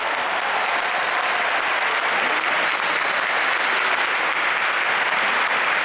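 Large crowd applauding steadily, a dense continuous clapping.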